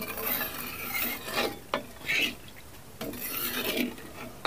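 Long-handled spatula scraping and stirring through a thin masala gravy in an aluminium kadhai, in uneven strokes with short pauses and one light click about two seconds in. Water has just been added to the fried masala and the gravy is not yet boiling.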